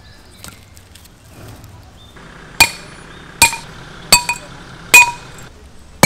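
A hammer drives metal stakes into the ground. Starting about two and a half seconds in, there are five sharp blows, roughly three-quarters of a second apart, each with a short metallic ring. The blow about five seconds in is the loudest.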